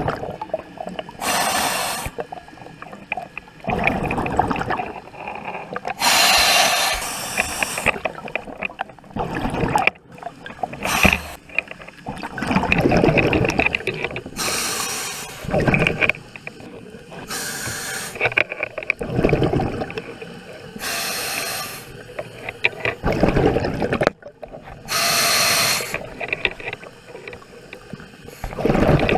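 Scuba diver breathing through a regulator underwater. A hissing intake alternates with a bubbly rush of exhaled air, about one breath every four seconds.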